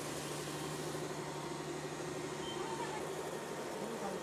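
Large floor-cleaning robot running, a steady motor whir and hum over a hiss of noise, with the low hum fading near the end.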